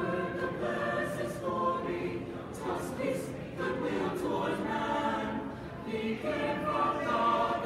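Mixed choir of men's and women's voices singing, holding chords that shift every second or so.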